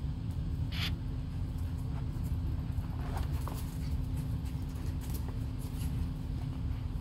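Maltese puppies playing on a cushioned dog bed: scattered scratches, scuffles and patters of paws, over a steady low hum and rumble.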